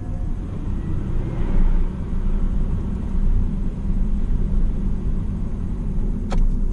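Steady low rumble of a car's engine and tyres on the road, heard from inside the moving car, with a single sharp click near the end.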